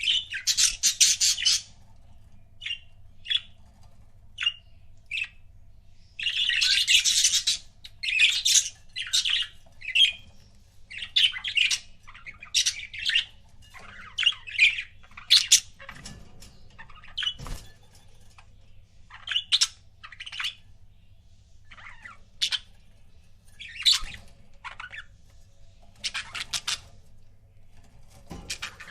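Pet budgerigars chirping and chattering: short sharp calls in quick, uneven succession, with longer scratchy warbling bursts about a second in and again around six to seven seconds in.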